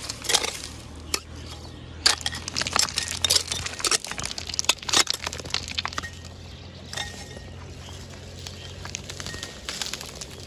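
Small metal trowel scraping and digging into a bank of dry dirt and gravel, with loose soil and pebbles trickling and clattering down in rapid clicks and crackles. The clatter is busiest in the first half and thins out toward the end.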